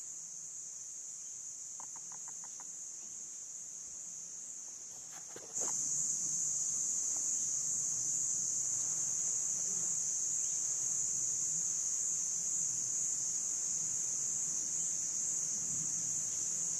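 Steady high-pitched drone of forest insects, stepping up louder about five and a half seconds in. About two seconds in comes a short run of five quick clucking notes.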